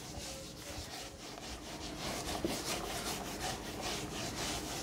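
Handheld eraser scrubbing a whiteboard: a quick run of dry rubbing strokes back and forth, several a second, growing a little stronger after the first couple of seconds.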